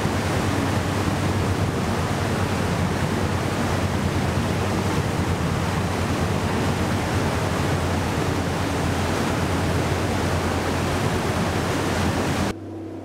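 Tour boat's engine running steadily with rushing water, a dense, even rumble with a low hum, echoing under a low brick-vaulted bridge. It cuts off suddenly about half a second before the end, leaving a quieter hum.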